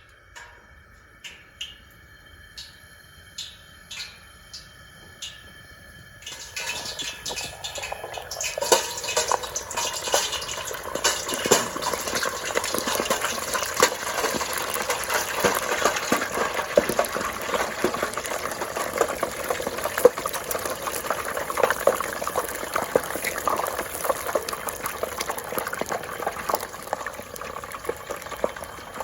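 Cornish hens deep-frying in oil heated to about 400 degrees: after a few light ticks, a dense crackling sizzle and bubbling sets in about six seconds in, swells over the next few seconds and carries on steadily.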